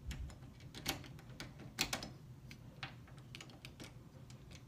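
Irregular light clicks and taps of small metal door-knob parts being handled and fitted together during reassembly, the loudest about two seconds in.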